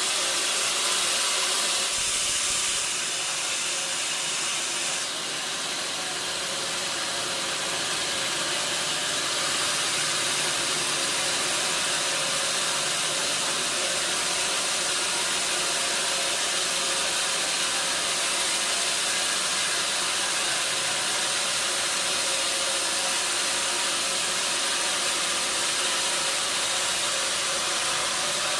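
Sawmill machinery running: a steady, even hiss with a faint hum underneath.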